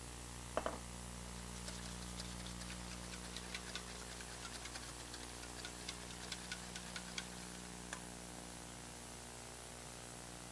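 Wire whisk ticking against a stainless steel bowl, beating oil into an egg yolk to emulsify it into mayonnaise, with a single knock about half a second in. The ticks come several a second, then thin out over the last few seconds, over a steady low hum.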